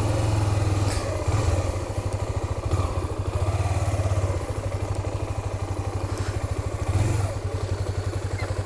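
Honda CBX 250 Twister's single-cylinder four-stroke engine running at low revs with an even pulsing beat, rising briefly about a second in and again near the end.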